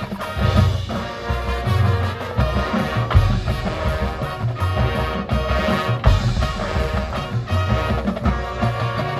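High school marching band playing at full volume: brass chords held over repeated bass-drum and percussion hits.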